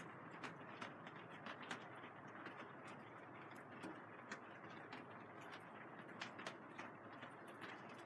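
Rain falling on the plastic sheeting of a vinyl greenhouse: a steady soft hiss with many irregular sharp taps of individual drops on the film.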